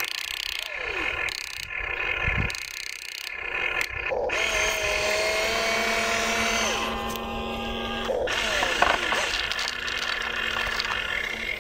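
Small electric motors of a toy RC excavator whining as the boom, arm and bucket move, the pitch stepping and gliding as each motion starts and stops. There is one sharp knock about nine seconds in.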